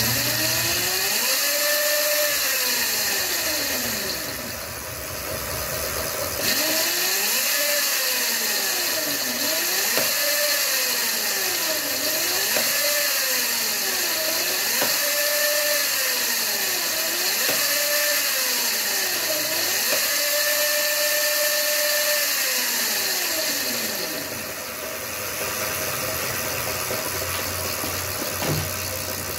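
Razor MX350's 24-volt electric motor spinning up and down as its twist-grip throttle is opened and released about seven times, a whine rising and falling in pitch over a steady hiss. It is a throttle test of a newly fitted speed controller, and the drive responds.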